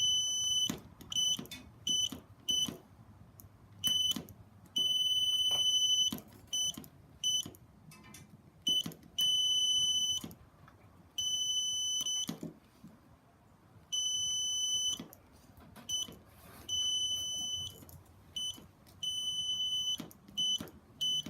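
Circuit buzzer keyed in Morse code: a steady high-pitched tone switching on and off in short and long beeps, dots and dashes, as two metal contacts of a homemade switch are pressed together and released. Faint clicks come at many of the presses.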